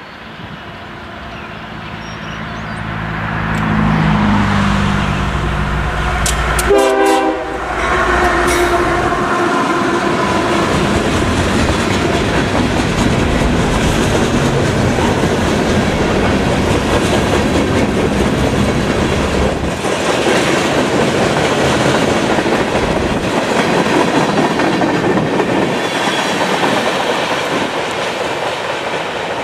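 Freight train passing close by. The lead Union Pacific GE C45ACCTE diesel locomotive's engine grows louder for about seven seconds and goes by. After that, a long string of freight cars rolls past steadily on the rails.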